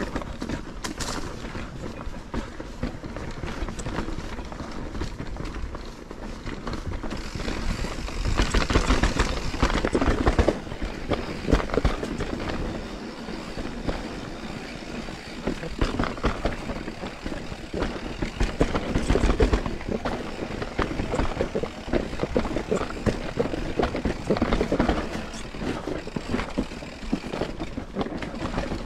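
Mountain bike riding down a rough trail: tyres rolling over the ground and the bike rattling, with a dense run of knocks from the bumps, loudest about a third of the way in.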